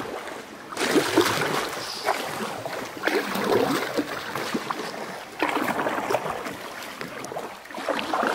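Canoe paddle strokes splashing through the water, a surge of splashing roughly every two to two and a half seconds.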